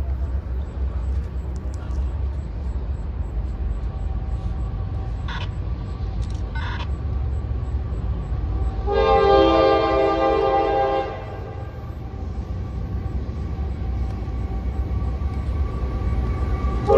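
Locomotive horn of an approaching CSX freight train sounding one long chord blast of about two seconds, starting roughly nine seconds in. It plays over a steady low rumble, and two brief higher tones come a few seconds before it.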